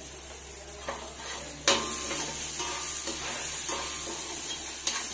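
Onion-tomato masala sizzling in a kadai while a slotted spatula stirs and scrapes through it, with sharp knocks of the spatula against the pan, the loudest about a second and a half in.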